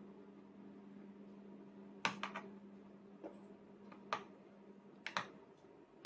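Plastic training chopsticks tapping and clicking against a plastic plate as a toddler picks at her food: a few light, sharp taps, a pair about two seconds in, single ones near three and four seconds, and another pair about five seconds in. A steady low hum runs underneath.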